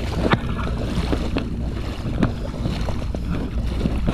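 Steady low wind rumble on the camera microphone over a kayak on flat, calm water, with a few small clicks and knocks scattered through.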